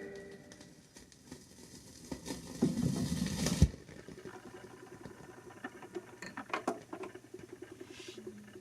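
Faint crackle and scattered clicks from a vinyl record after the song has ended. About three seconds in there is a louder rustling stretch that cuts off suddenly, followed by small irregular ticks.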